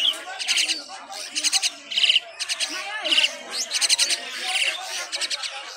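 Several downy hawk nestlings calling over and over, short shrill harsh cries about once or twice a second, often overlapping.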